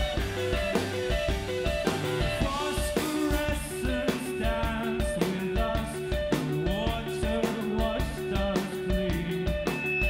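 Indie rock band playing live: electric guitar picking repeated notes over bass guitar and a drum kit, with a male voice singing through the middle of the passage.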